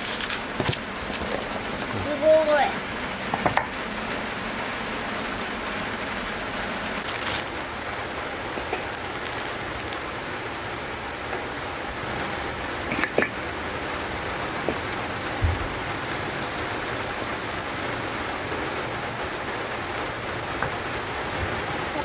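Packing tape tearing and cardboard rustling as a firewood box is opened, with a few clicks. This gives way to a steady outdoor hiss broken by a couple of sharp knocks.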